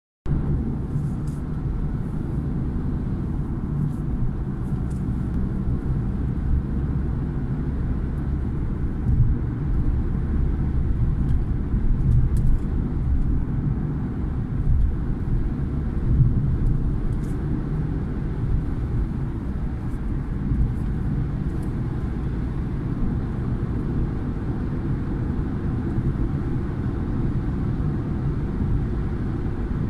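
Steady low rumble of a car's tyres and engine heard from inside the cabin while driving along a highway.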